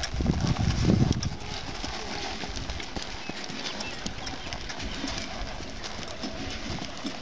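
Hoofbeats of a paint horse walking on packed dirt and grass, soft irregular steps with scattered light clicks. Louder low thumps come in the first second or so.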